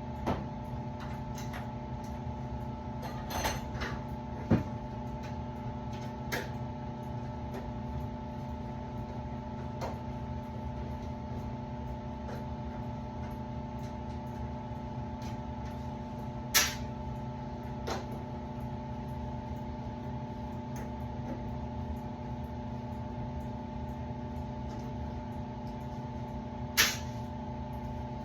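Steady machine hum made of several fixed tones, with a few sharp clicks and knocks from parts being handled while working on a furnace. The loudest knocks come about a sixth of the way in, just past halfway, and near the end.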